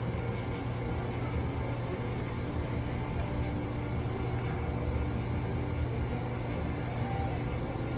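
Steady low mechanical hum with no pauses or changes.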